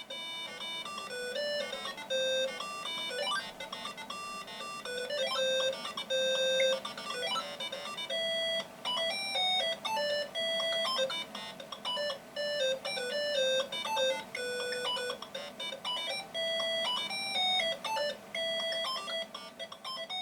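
Background music: an electronic melody of quick, stepping synth notes.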